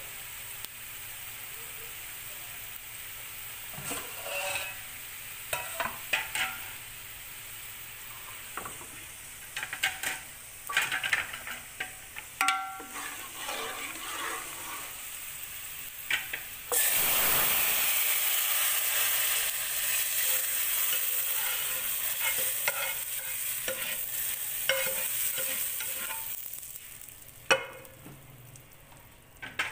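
A tempering of onions, round red chillies and cumin sizzling in hot oil, with scattered clinks of a stirring spoon. A little over halfway through comes a sudden loud sizzle, the hot tempering hitting the cooked black masoor daal, which fades over about ten seconds, followed by a sharp knock.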